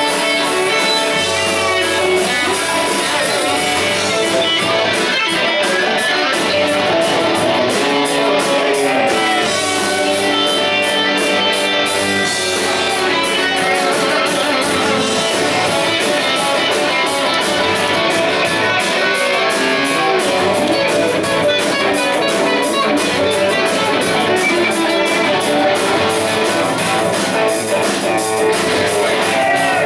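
A live rock band playing loud, electric guitars over drums with cymbals keeping a steady beat, recorded from among the audience.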